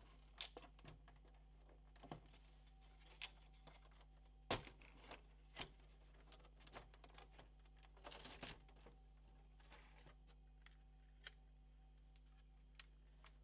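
Scattered light clicks and taps of hands and tools working on a PS4 Pro console's plastic and metal parts during disassembly, with one sharper knock about halfway through and a short cluster of rustling clicks a little later.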